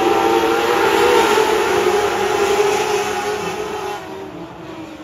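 A pack of topless modlite dirt-track race cars running under throttle, several engine notes overlapping and wavering in pitch. The sound fades about four seconds in as the pack pulls away.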